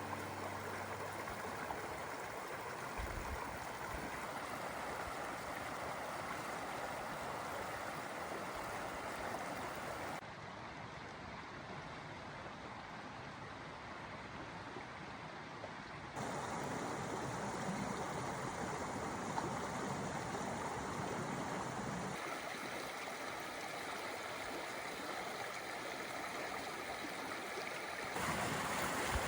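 Flowing stream water rushing and gurgling steadily. The level changes abruptly about a third of the way in, again past halfway, and near the end, as if cutting between separate stretches of water.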